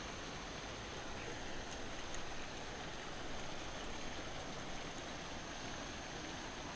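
Steady rushing splash of a pond's fountain aerator, an even hiss without breaks, with a faint high steady tone above it.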